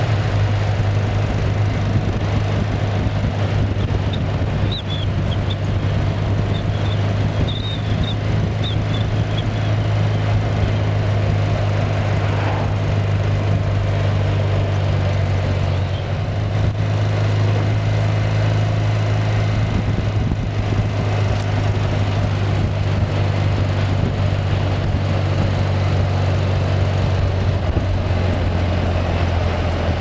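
BMW boxer flat-twin motorcycle engine at steady cruising revs, heard from the bike itself as a steady low drone over wind and road noise.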